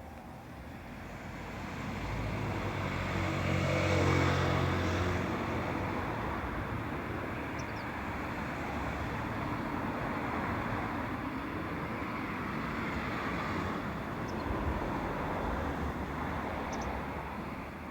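Rushing engine noise of a passing vehicle, swelling to its loudest about four seconds in and then holding steady. A few faint, short, high bird chirps come through over it.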